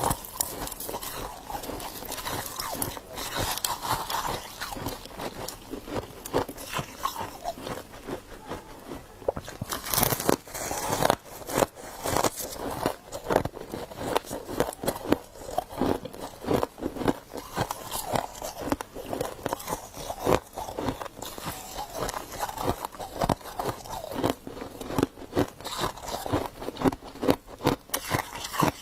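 Close-up crunching and chewing of humidifier frost: fast, irregular crisp crunches of soft ice being bitten and chewed, with louder bites every second or so.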